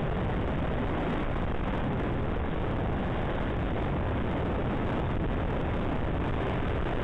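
Steady rush of wind on the microphone of a motorcycle at highway speed, mixed with engine and tyre noise, unbroken and unchanging.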